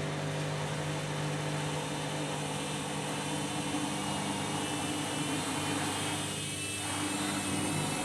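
Candy Grand'O Vita washing machine running with a heavy, overloaded drum as it turns the load before the spin: a steady motor hum with a layer of whirring, easing briefly near the end.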